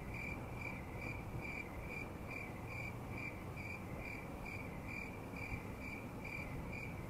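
Faint cricket chirping, very evenly spaced at about two and a half chirps a second, over a low background rumble.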